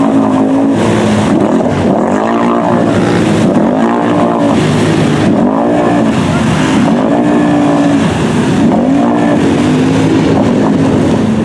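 ATV engine revved up and down over and over, about once every second and a half, as its tires spin and churn through deep mud.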